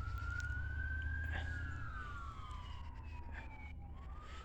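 Siren wailing: one tone climbs slowly to a peak, falls away over about two seconds, then starts to rise again near the end. A steady low rumble sits beneath it.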